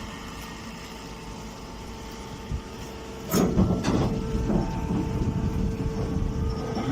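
Straw baler machine running with a steady hum; about three seconds in, a louder clattering and knocking starts and keeps going.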